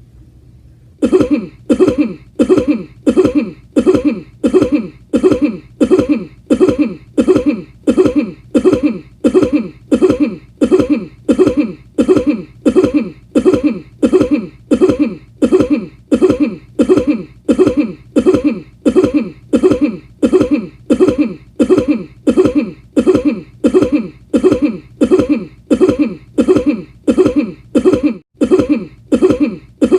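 A man's cough repeated over and over in an even loop, about three coughs every two seconds, starting about a second in.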